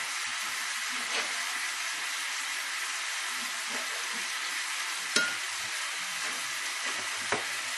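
Food sizzling steadily in a frying pan on a gas hob, with a few light clinks of kitchenware; the sharpest clink comes about five seconds in.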